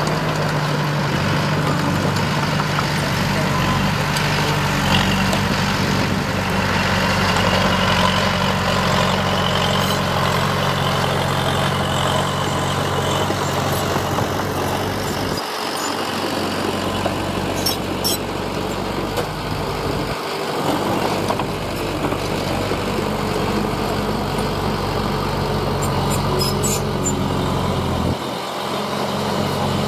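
Heavy diesel earthmoving machinery running: a continuous deep engine drone that shifts in pitch a few times, with a few short clicks.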